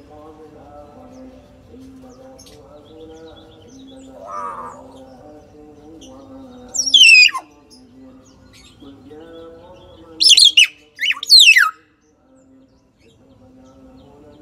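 Common hill myna giving loud, piercing calls that sweep down in pitch: one about seven seconds in, then two more in quick succession a few seconds later.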